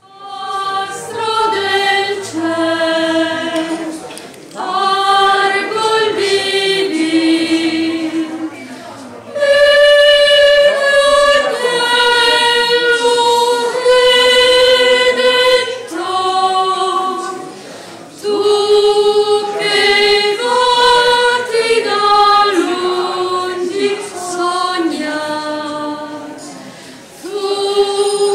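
A small group of four women singing a cappella, in phrases of held notes with short breaks between them.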